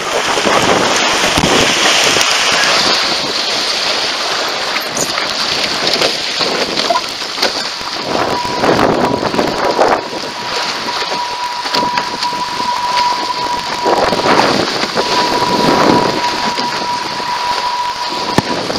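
Wind buffeting the microphone and water rushing and spraying off the hull of a foiling A-Class catamaran, with several louder surges of spray. A thin steady whistle runs through the second half.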